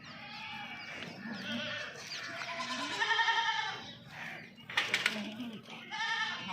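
Several goats bleating over one another, the loudest call about three seconds in and another near the end, with a sharp knock just before five seconds.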